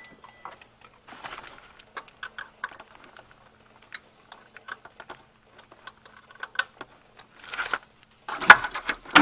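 Irregular metallic clicks and clinks of hand tools on the water pump pulley bolts, with a screwdriver wedged between the bolts to hold the pulley. Short scrapes come in between, and a louder clatter of metal near the end.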